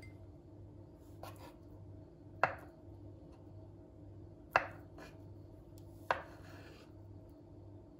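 Kitchen work: three sharp knocks with short ringing tails, about two seconds apart, and a couple of softer taps between them. A steady low appliance hum runs underneath.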